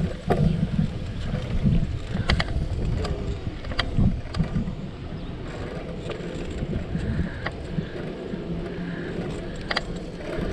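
Wind buffeting the microphone of a camera riding along on a moving bicycle: a steady low rumbling rush. A few sharp clicks or knocks come through it now and then, about five in all.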